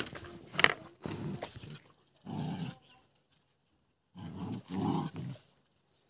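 Gaddi puppies playing and vocalizing in three bursts: one at the start, a short one about two seconds in and a longer one about four seconds in.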